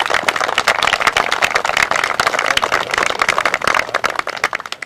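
Crowd applauding, many hands clapping densely, thinning out and stopping near the end.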